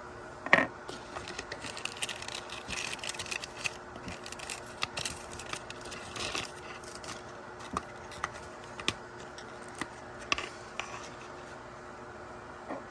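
Small plastic toy packaging being handled: irregular scrapes, rustles and clicks, with a sharp click about half a second in, over a steady background hiss.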